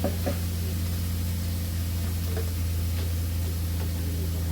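Chicken and bamboo shoots frying in oil in a kadai: a steady sizzling hiss over a constant low hum, with a couple of light knocks near the start.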